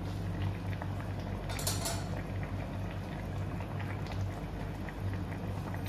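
Fish curry bubbling at a steady boil in a steel kadai over a gas burner, with a low steady hum under the bubbling. A brief metallic scrape of the steel ladle on the pan a little under two seconds in.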